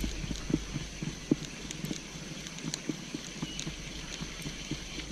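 Spinning fishing reel being cranked to retrieve line, its handle and gears giving a run of soft, uneven clicks and ticks, a few each second.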